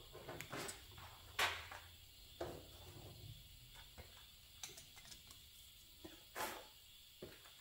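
A few faint, scattered knocks and clicks, the loudest about a second and a half in, over a faint low hum.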